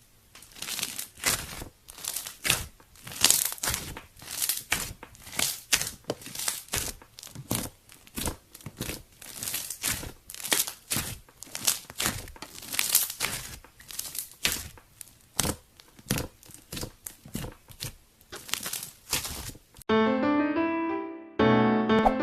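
Homemade slime being squished and pressed by hand, crackling and popping in short bursts about twice a second. Near the end it cuts to cheerful music.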